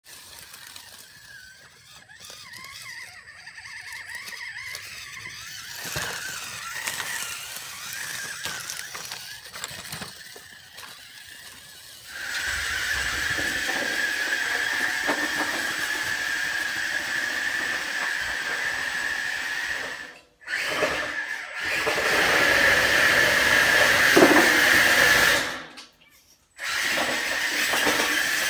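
Electric motor and gear whine of an ECX Barrage 1/12-scale RC crawler as it crawls: faint and wavering over rocks and leaves at first, then louder and steady from about halfway in, inside a corrugated metal culvert pipe. The sound cuts out briefly twice near the end.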